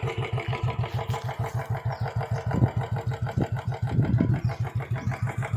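Royal Enfield Bullet's single-cylinder four-stroke engine idling with its normal, unmodified sound: a steady, even beat of low thumps.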